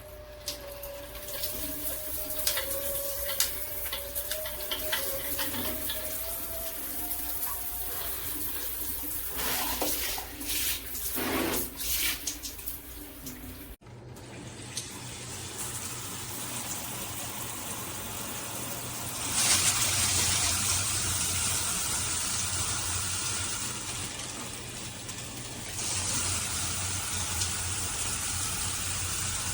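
Water spraying from a SparkPod dual shower head. A faint wavering whistle runs through the first half. The spray breaks off abruptly about halfway, comes back, and grows louder about 20 seconds in.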